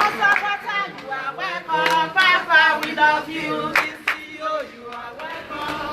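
Several people singing together, with scattered hand claps.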